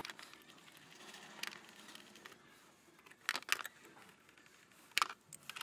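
Faint handling noises as a plastic engine airbox is set in place and its bolts started with a socket wrench: a few light clicks and taps, with a small cluster about three seconds in and a sharper click near the end.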